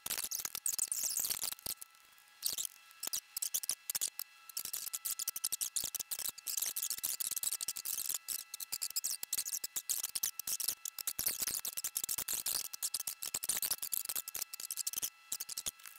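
Film soundtrack played back many times faster than normal: dialogue and score turn into a rapid, high-pitched squeaky chatter, with a few steady high tones underneath.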